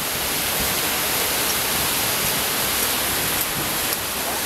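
Steady rushing of a waterfall pouring into a rock pool, an even hiss with no breaks.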